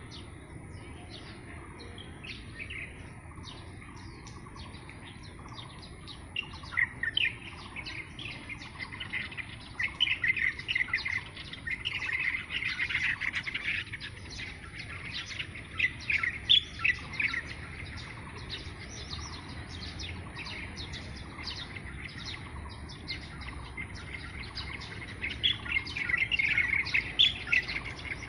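Small songbirds chirping in quick runs of short, repeated high notes, busiest through the middle and again near the end, over a quiet steady outdoor background.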